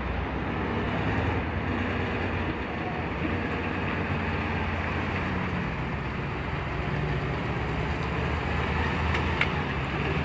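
Heavy truck's diesel engine running steadily, with a low hum under general street noise; a few light clicks near the end.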